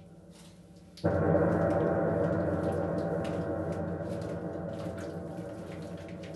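A single deep gong stroke about a second in, ringing with many overtones and slowly dying away.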